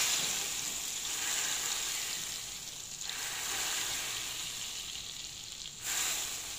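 Very hot cooking oil poured from a frying pan onto crushed bird's-eye chillies and garlic, sizzling hard. The sizzle eases a little, then flares again briefly about six seconds in as more oil goes on.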